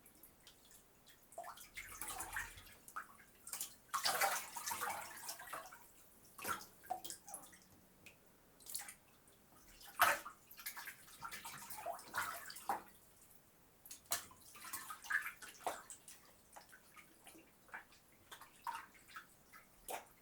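Water sloshing and splashing in a bathtub as someone bathes, with irregular splashes and drips; the biggest splash comes about halfway through.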